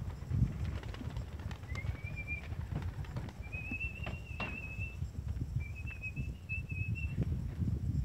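Three long whistled notes, each held near the same high pitch with a slight waver, the first short and rising, over a low, uneven rumble.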